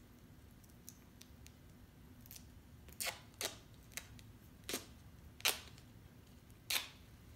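Duct tape being peeled off its roll in about six short, sharp rasps, starting about three seconds in.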